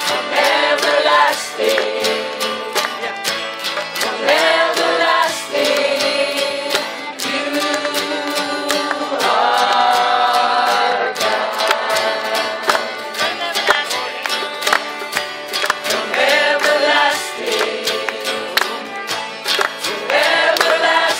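A small group singing a song together, accompanied by three strummed acoustic guitars and a violin.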